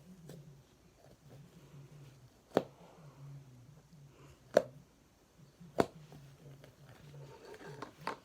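Slime being handled by hand, soft and squishy, with four sharp pops spread across a few seconds.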